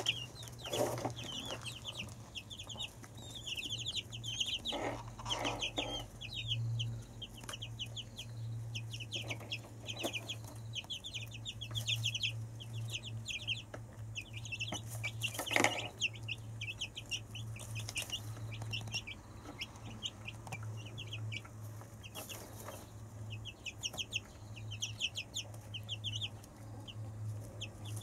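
Silkie chicks peeping in rapid runs of short high notes as they eat, with a few brief knocks now and then and a low steady hum underneath.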